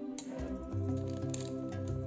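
Background music with steady held notes; a low bass line comes in about half a second in, with a few light clicks over it.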